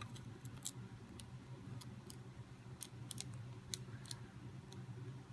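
Faint, irregular clicks of a lock pick working the side wafers of an Illinois duo wafer padlock, over a low steady hum.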